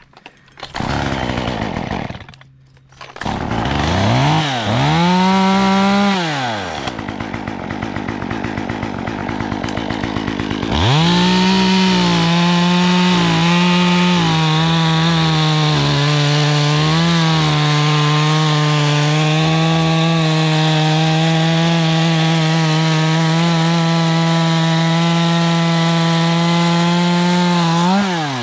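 Two-stroke chainsaw revving up and down, then held at high revs for a long stretch with small dips in pitch as it cuts through wood. Near the end it drops and revs up again.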